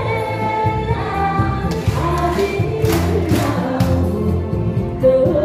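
Upbeat music with a group of voices singing along.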